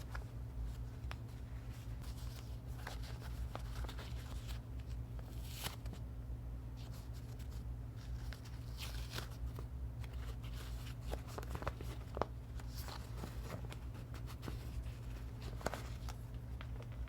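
Scattered light clicks and rustles of things being handled by hand, over a steady low hum.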